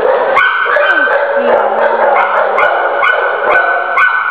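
Dogs barking in a dog pound's kennels: a constant din of overlapping barks, with sharp barks landing about twice a second.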